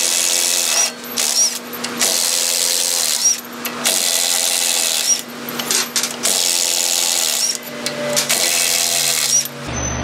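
Mid-torque impact wrench spinning out hub bolts that have already been broken loose, in a series of short runs of about a second each with brief pauses between them.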